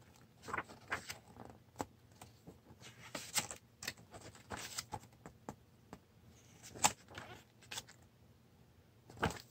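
Glossy paper pages of a booklet being flipped by hand: an irregular string of quick rustles and flaps, with a brief pause about six seconds in.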